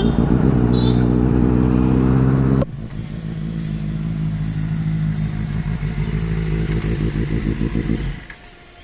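Benelli 600i's inline-four engine running at a steady speed, loud at first and then suddenly quieter about two and a half seconds in, cutting off about eight seconds in.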